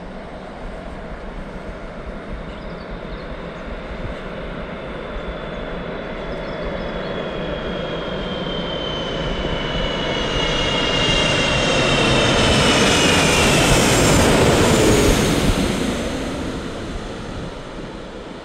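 Airbus A330-300 twin-engine jet airliner passing overhead, its Pratt & Whitney PW4000 engines building to a loud roar that peaks about three-quarters of the way through and then fades. An engine whine slides downward in pitch as the aircraft goes by.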